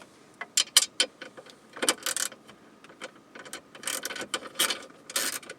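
1/4-inch ratchet with a 10 mm socket clicking in short bursts as bolts are backed out, with light metallic clinks and rattles between.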